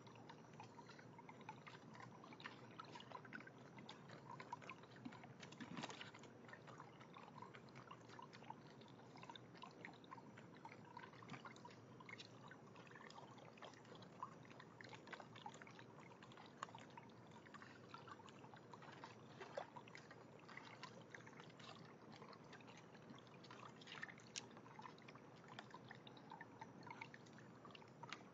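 Small backyard barrel fountain trickling faintly, with a steady run of water and scattered small drips and splashes.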